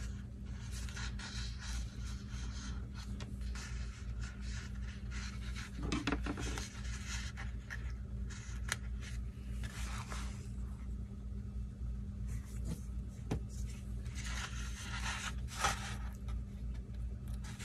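Paper handling: sticker-book pages and sticker sheets rustling and scraping against each other and the table, irregularly, with a few louder scrapes scattered through. A low steady hum sits underneath.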